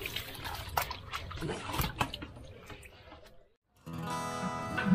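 Water poured from a steel bowl splashing over a wet puppy and onto a concrete floor. It cuts off about three and a half seconds in, and after a brief gap background music begins.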